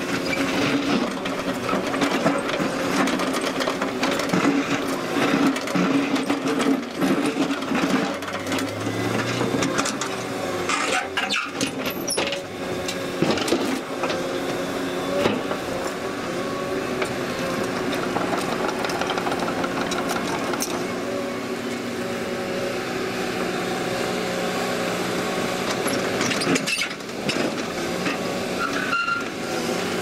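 Hyundai crawler excavator's diesel engine running steadily under working load, rising in pitch briefly about a third of the way in as the arm and bucket move. A few sharp clanks stand out around the middle and near the end.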